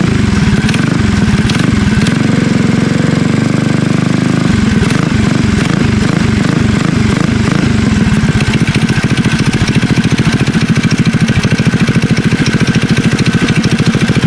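A minibike's built-up small single-cylinder four-stroke engine running just after a cold start on a little choke. It is revved up and down a few times, then settles into a steady, evenly pulsed run about eight seconds in.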